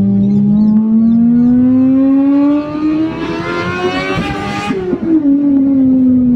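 Honda Civic Type R EP3 engine with a decat 4-2-1 manifold, stainless exhaust and BMC induction kit, heard from inside the cabin. The note climbs steadily as the car accelerates, with a hiss building near the top of the revs. About five seconds in the hiss cuts off suddenly and the note falls away as the car slows.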